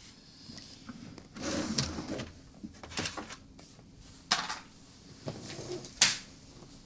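Objects being handled on a desk in a small room: a few rustles and knocks, like a drawer and papers being moved, with two sharp taps, about four and six seconds in.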